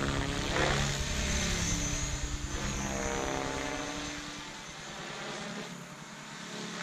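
Electric 550-size RC helicopter in 3D flight, its brushless motor and rotor whining steadily. The pitch slides up and down as the head speed and load change through manoeuvres. It drops a little in level past the middle and picks up again near the end.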